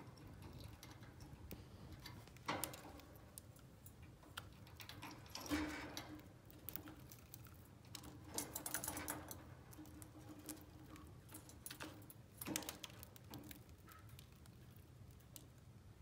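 Budgies moving about a wire cage: four or so scattered clicks and rattles against perches and wire, over a faint steady hum.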